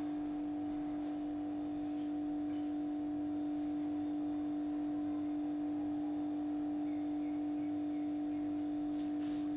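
Steady, sustained drone at one low pitch with faint higher overtones, holding an even level without decaying: a meditation-style ringing tone like a singing bowl's.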